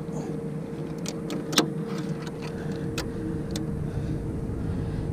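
Steady low mechanical hum on a fishing boat, with a few sharp knocks and clicks from handling on the deck; the loudest knock comes about a second and a half in.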